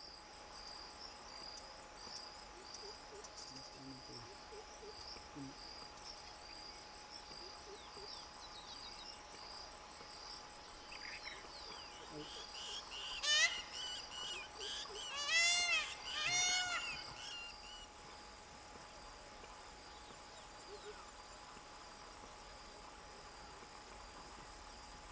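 Insects trilling steadily at a high pitch, with a peacock (Indian peafowl) giving loud, ringing calls a few times about halfway through, the last two about a second apart.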